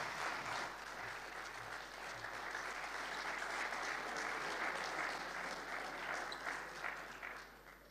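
Audience applause: a seated crowd clapping steadily, dying away near the end.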